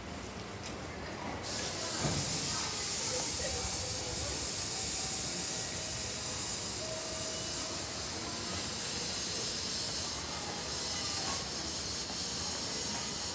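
Keikyu electric train running through the station, heard as low rumbling under a steady hiss that starts suddenly about a second and a half in.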